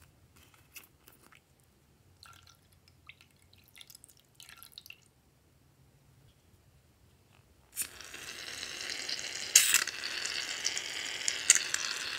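Faint squelches and drips as purple slime is squeezed out of a plastic bottle. About eight seconds in, an aerosol can of shaving foam starts spraying with a steady hiss and two louder sputters, then cuts off suddenly near the end.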